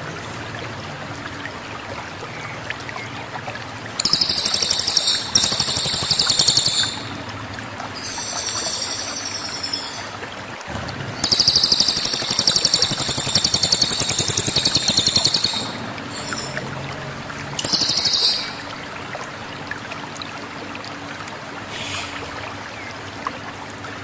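Crested jay (cililin) giving loud, high, buzzy rattling calls in a series of bursts, the longest about four to five seconds from around eleven seconds in, with a short one near the end, over a steady low hiss.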